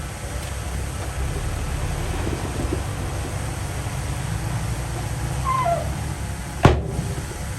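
Heavy diesel machinery engine running with a steady low rumble, a brief squeaky call about five and a half seconds in, and a single sharp click near the end.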